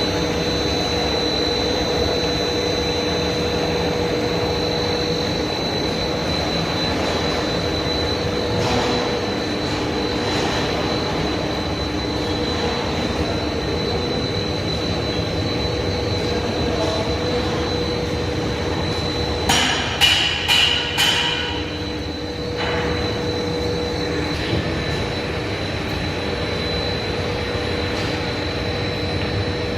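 Heavy machinery running steadily, with a constant high whine over a low hum. About twenty seconds in come four quick metallic clanks that ring briefly.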